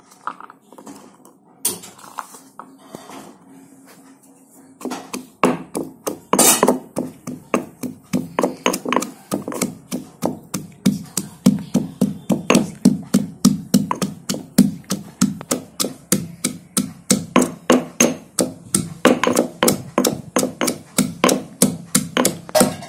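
Stone pestle pounding in a stone mortar: a few scattered knocks, then from about five seconds in a steady run of sharp strikes, about three to four a second.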